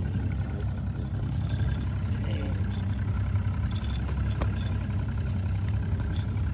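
Boat's outboard motor idling with a steady low hum, with a few light clicks and knocks of handling on the deck.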